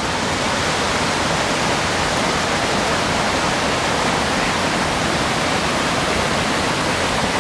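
River water rushing past, a steady loud rush with no breaks.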